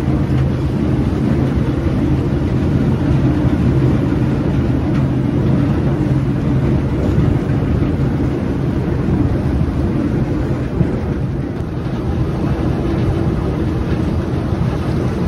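A water bus under way: its engine drones steadily, with the rush of churned water along the hull and wind on the microphone.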